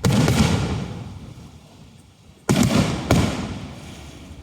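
Aerial firework shells bursting: three deep booms, one at the start and two close together about two and a half seconds in, each trailing off in a rolling rumble.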